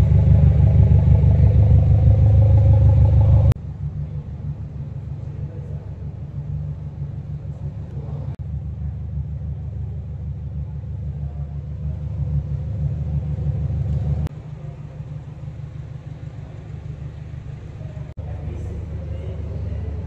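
Modified car engines idling with a steady low exhaust rumble, loudest and closest for the first three and a half seconds. The sound drops and changes abruptly about three and a half, fourteen and eighteen seconds in, as it moves to quieter idling.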